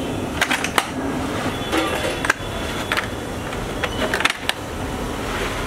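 Scattered clinks and knocks of a large aluminium vessel as cooked rice is handled in it, over a steady background hiss.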